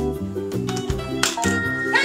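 Cheerful background music with a steady beat.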